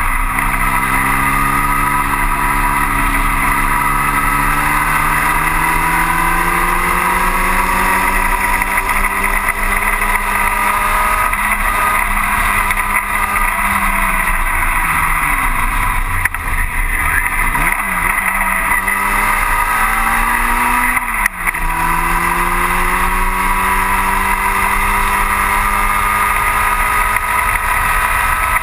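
Onboard sound of a 1960 Cooper T-52 Formula Junior's engine at racing speed. It climbs steadily in pitch, falls away in the middle as the car slows, then climbs again. A brief break in the sound about 21 seconds in is followed by another steady climb.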